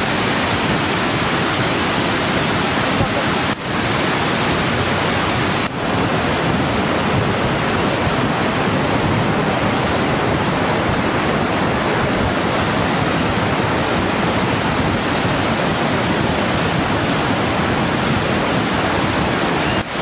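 Steady, loud rush of a silt-laden river in full flood churning past, with two brief dips in the first six seconds.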